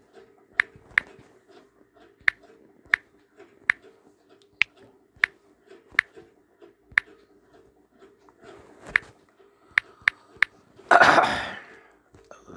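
Sharp, irregular clicks from typing on a smartphone's on-screen keyboard, about fourteen key presses spaced half a second to a second apart, over a faint steady hum. About eleven seconds in there is one brief, louder rushing noise.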